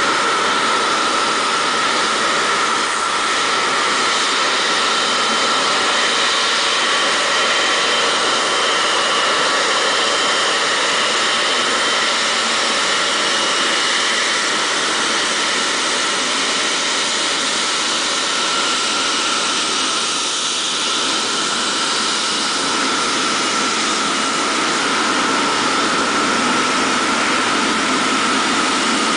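Jet engines of a Boeing 777-300ER (GE90 turbofans) running at taxi power with a steady whine. The lower rumble grows over the last few seconds as the aircraft passes close by.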